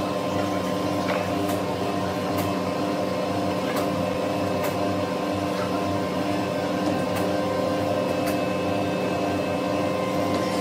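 Workshop machinery humming steadily with a held, even drone, and a few light knocks of wooden pieces being set down on the floor.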